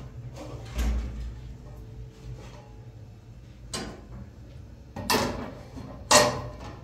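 Kitchen handling noises over a steady low hum: a dull thump about a second in, then three short rustling scrapes, the loudest near the end.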